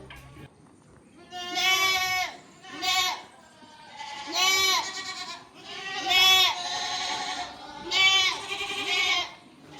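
Goats bleating, about six calls one after another, each rising and falling in pitch.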